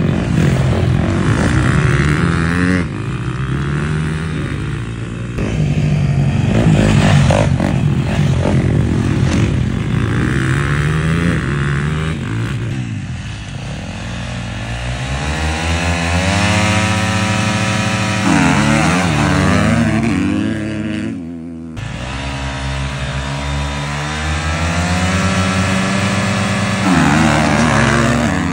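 Motocross bike engines revving hard and accelerating on a dirt track, pitch rising and falling with throttle and gear changes. In the second half two bikes rev together at a start gate and pull away side by side.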